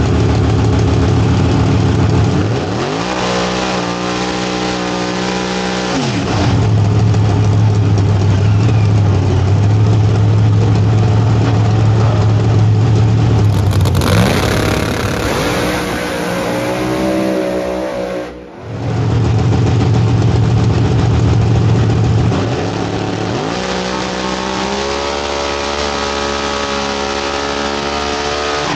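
Pro Mod race car's ProCharger-supercharged big-block Chevy (ProLine 481X) idling and three times revved up, held for a few seconds and let back down to idle: about 3 s in, past the middle and near the end. The sound briefly drops out just past the middle.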